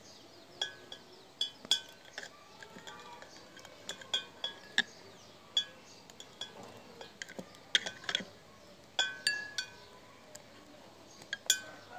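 Kitchen knife clinking against a small white bowl while soaked almonds are chopped by hand: irregular sharp, ringing clinks, one or two a second.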